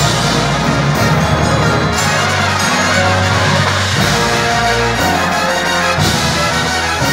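Drum and bugle corps brass line playing loud sustained chords in full ensemble, the chords changing about once a second.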